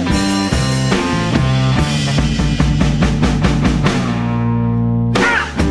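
Psychedelic rock instrumental passage with electric guitar, bass and drum kit and no vocals. Near the end a chord rings out with the drums sparse, then the drums hit hard again.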